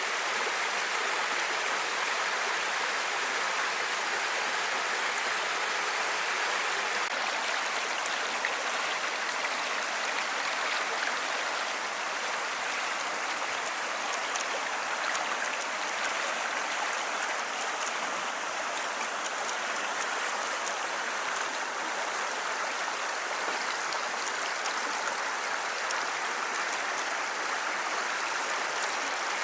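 Water running in a stream: a steady rushing and babbling of flowing water that does not change.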